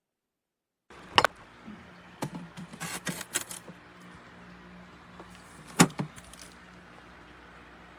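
A few sharp clicks and a short run of rattles over a steady low hum, like things being handled. The loudest click comes near six seconds in.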